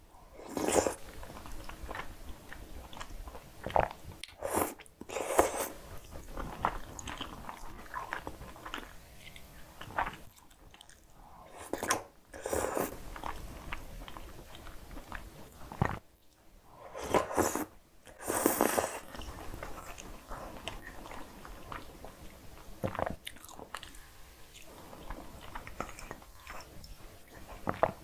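Close-miked eating sounds of truffle cream spaghetti: wet chewing and mouth noises with several loud slurps, each about a second long, as noodles are sucked in.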